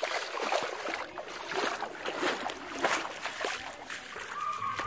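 Bare feet splashing through ankle-deep water covering wooden boardwalk planks, a steady run of splashing steps.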